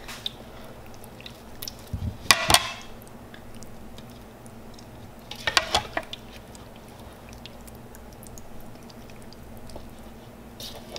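A slotted serving spoon knocking and scraping against a mixing bowl as wet, lime-cured fish pieces are scooped, drained and dropped into another bowl, in a few short bursts, the loudest about two and a half seconds in and another around five and a half seconds.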